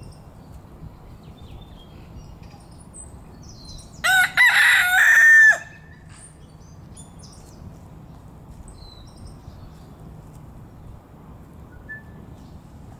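A rooster crowing once, about four seconds in: a short broken start, then a long held note that ends after about a second and a half.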